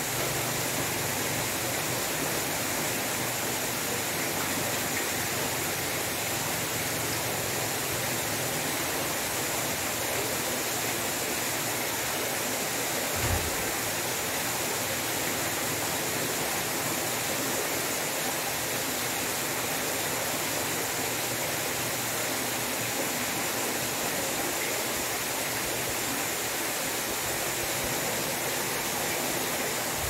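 Steady rush and splash of water pouring in a sheet from a stone-wall water feature into a plunge pool whose surface is churning. A brief low thump near the middle.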